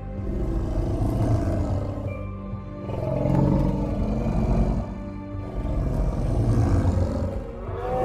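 Woolly mammoth creature sound effect, mixed from elephant and other beast calls: three deep, drawn-out roars in a row, each about two seconds long with a wavering pitch.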